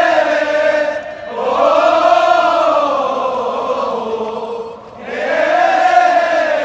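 A large group of men singing a football chant in unison, in long held phrases that rise and fall in pitch. The singing breaks briefly for breath about a second in and again near five seconds.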